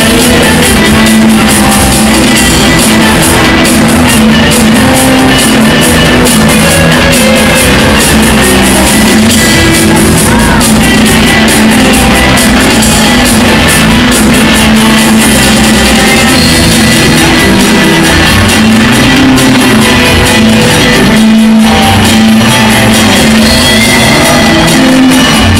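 Loud rock music with electric guitar plays continuously, with a brief drop about three-quarters of the way through.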